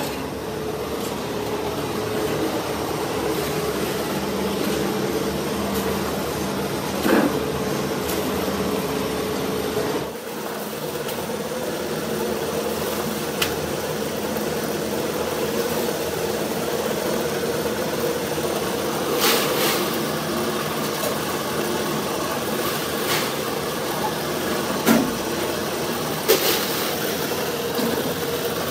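Metalworking machinery running with a steady hum, with a few sharp metal knocks; the background changes about ten seconds in.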